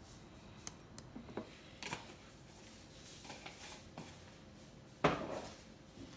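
Small clicks and taps of a plastic jar lid being handled over a glass as instant coffee granules are tipped in, then one louder, sharp knock about five seconds in.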